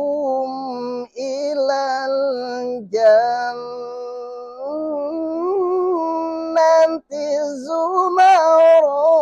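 A man chanting a Quran recitation in the melodic tilawah style: long, held, ornamented notes, with short breaks for breath about one, three and seven seconds in.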